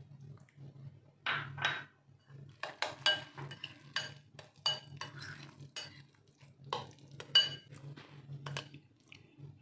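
A steel spoon clinking and scraping against a glass bowl and a plate as thick curd is scooped off the plate into the bowl. It makes an irregular string of sharp clinks, each with a short ring.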